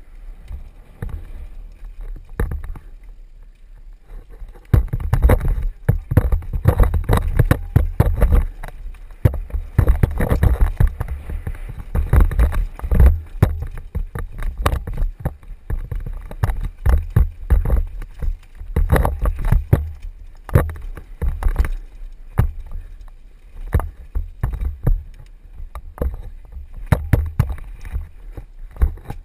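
Downhill mountain bike rattling and clattering over a rocky dirt track, heard from a helmet-mounted camera, with wind rumbling on the microphone. Quieter for the first few seconds, then a dense run of irregular knocks and jolts from about five seconds in.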